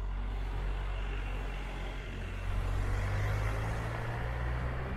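A motor vehicle's engine running close by with a steady low hum, its noise swelling from about two and a half seconds in.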